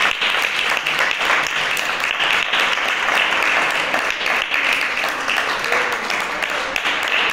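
Audience applauding steadily: dense clapping from a hall full of people, with faint voices under it.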